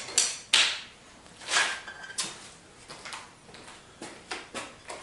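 Tools and parts being handled: a series of short scrapes and knocks, the sharpest about half a second in, one with a brief ringing tone about a second and a half in.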